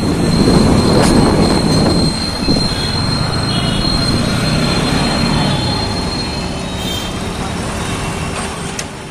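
Riding on a motorcycle through town traffic: steady wind rush and engine and road noise, loudest at the start, with a thin high whine for the first six seconds or so.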